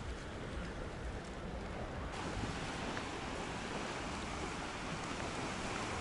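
Soft, steady sea ambience beside a calm sea: an even hiss of small waves, with a low wind rumble underneath.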